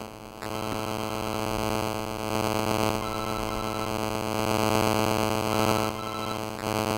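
A steady, buzzy electronic drone. It breaks off for a moment just after it starts and stops shortly before the end.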